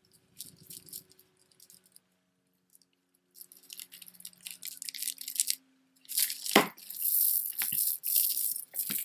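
Strands of stone beads clicking and rattling against each other as beaded necklaces are handled. A few faint clicks at first, then a dense clatter from about three seconds in that grows much louder about six seconds in.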